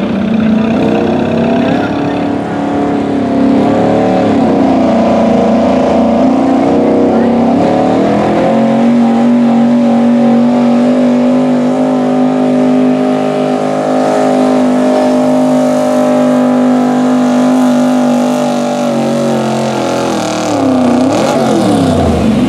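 Gasoline engine of a Chevrolet pickup in the altered stock class, run at high revs under full load as it drags a weight-transfer sled. The engine note dips about four and eight seconds in, holds steady for about ten seconds, then falls away near the end as the pull finishes.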